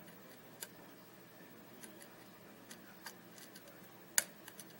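Irregular small metal clicks and ticks of a lock pick and tension tool working the pin stacks of a Corbin Russwin large format interchangeable core, with one sharper click a little over four seconds in.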